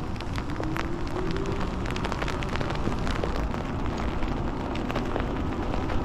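Wind buffeting the microphone and tyre noise on wet pavement while riding an e-bike in the rain, with many scattered raindrop ticks.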